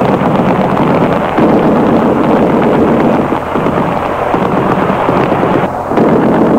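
Shortwave radio reception buried in loud hiss and crackling static, the programme audio muffled and barely showing beneath the noise.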